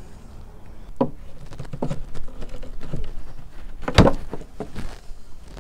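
Hammer levering a nailed wooden block off the bottom rail of an old wooden radio cabinet: scattered knocks and creaks of metal on wood, with the loudest, a sharp crack, about four seconds in.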